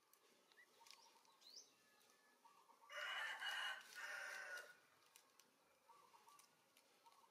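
A rooster crows once, a call of nearly two seconds beginning about three seconds in, over faint crackling clicks of dry palm fronds as a baby monkey crawls across them.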